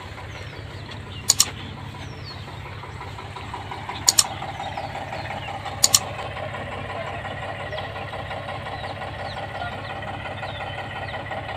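Diesel tractor engines running steadily, their note growing stronger about four seconds in. Three sharp double clicks from the like-and-subscribe overlay's mouse-click sound effect stand out above the engines.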